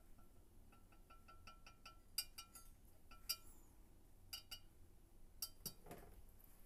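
Faint clinks and taps of a paint strainer shifting against the top of a vase: a quick run of light ticks, then a few sharper clinks.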